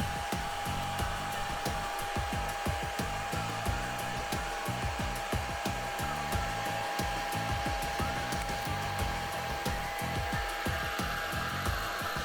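Hair dryer running steadily, with a constant whine over its blowing hiss, set to background music.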